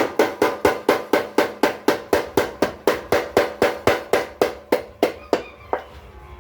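Blacksmith's mechanical power hammer running, its ram striking metal in a steady run of about three blows a second, each blow ringing. The blows slow and stop near the end.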